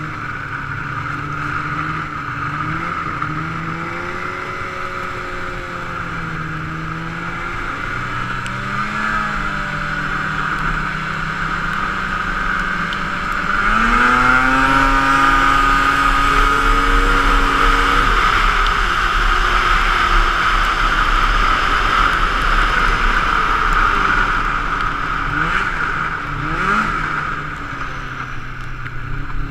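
Polaris Indy snowmobile engine running under way. About halfway through it revs up sharply to a higher pitch and gets louder, holds there for several seconds, then eases off near the end.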